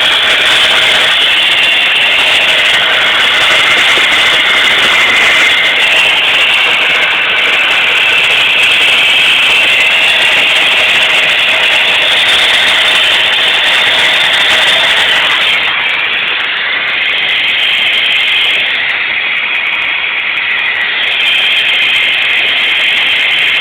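The 1991 Chevy S10's 2.5L Tech 4 four-cylinder engine running at a rough idle, heard as a loud, steady rasping hiss with little low rumble.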